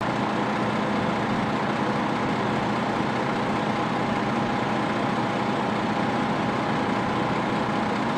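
Steady engine noise of idling fire engines, a constant drone with a faint steady hum in it.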